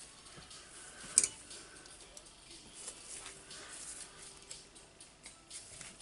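Small metallic clicks and light handling noise from an Allen key working the steel screws that join the hammer casing to the motor housing of a Hitachi DH40MR rotary hammer, with one sharper click about a second in.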